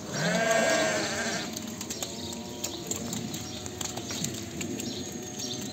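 A flock of sheep packed in a fold, bleating. One loud, wavering bleat lasts about a second and a half at the start, then quieter bleats overlap with scattered small clicks.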